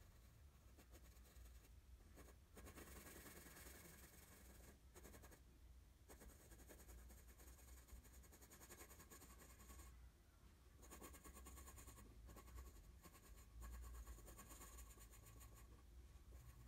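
Graphite pencil scratching across paper in rapid short shading strokes, faint, stopping briefly a few times as the hand lifts.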